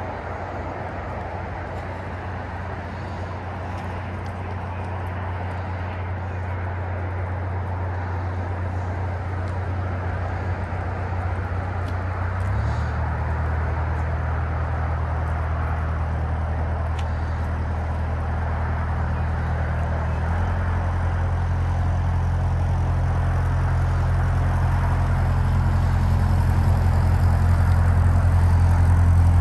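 Narrowboat diesel engine running at cruising speed, a steady low throb that grows louder as the boat draws near and passes. Its note shifts about twelve and twenty seconds in. Near the end the propeller churns the water at the stern.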